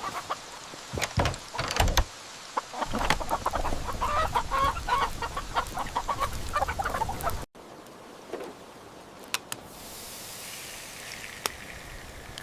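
Chickens clucking over a steady rain hiss, with a few sharp clicks in the first two seconds. The clucking cuts off abruptly about seven seconds in, leaving the hiss with a few scattered ticks.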